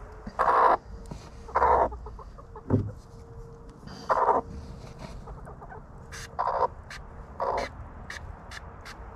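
Chickens squawking: about six short, harsh calls, a second or more apart, with a few faint clicks near the end.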